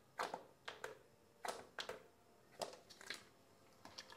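Plastic squeeze bottle of chili sauce being squeezed into a glass: about six short, faint squirts and splutters as sauce and air are forced out.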